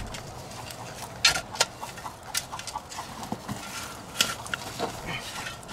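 A shovel digging into dirt and wood-chip mulch: irregular short scrapes and knocks as the blade is pushed in and levered.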